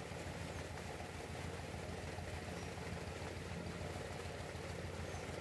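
A riverboat's engine running steadily under way, a low, even drone.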